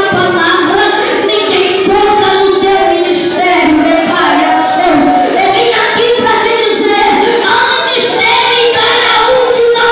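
A boy singing into a handheld microphone, his voice amplified through loudspeakers, with long held notes.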